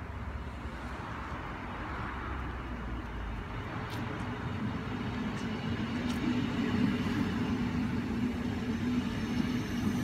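DB Class 425 electric multiple unit pulling into the platform and passing close by, its running and rolling noise growing louder. A steady low hum comes in about halfway, with a few sharp clicks just before it.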